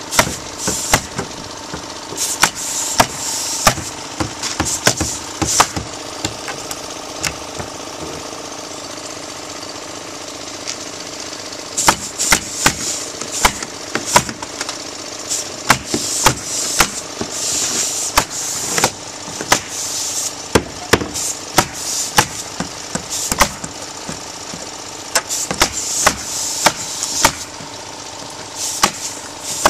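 Pneumatic roofing nail guns firing sharp shots in quick irregular runs, each with a short hiss of air, as felt underlayment and decking are nailed down. A steady engine hum runs underneath. There is a lull of a few seconds about a third of the way in.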